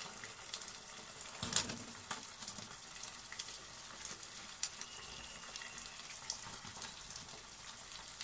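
Chili chicken gravy with capsicum sizzling and crackling in the pan as fried chicken pieces go in. It is a steady sizzle scattered with small ticks, and one louder knock comes about one and a half seconds in.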